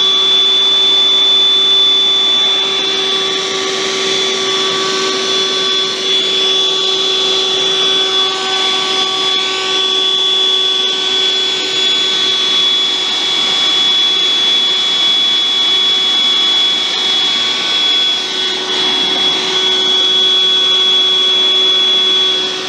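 Dirt Devil handheld vacuum running steadily with a high motor whine over a rushing hiss, sucking crumbs and debris out of a laptop's keyboard bay.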